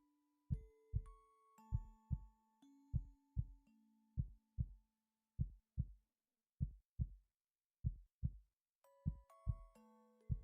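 Human heartbeat in close lub-dub pairs, one pair about every 1.2 seconds, with soft held musical notes over it that fall away for a few seconds in the middle.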